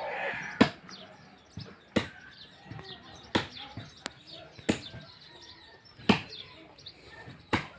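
Six sharp strikes at a steady pace, about one every second and a half, from construction work. Birds chirp faintly between them.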